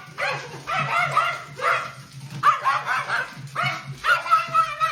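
A dog barking and yelping in a series of short pitched calls, about one a second.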